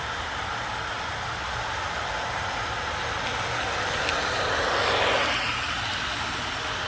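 Model train running on the club layout: a steady hiss of running noise that swells briefly about two-thirds of the way through, as the train passes close, and then fades.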